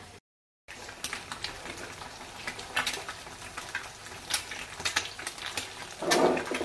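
Eggs frying in oil in a nonstick frying pan over a gas burner, crackling and spitting with irregular pops. A louder brief knock comes about six seconds in.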